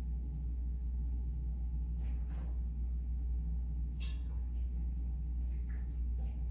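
Shower water running in a steady low rush, with a sharp click about four seconds in.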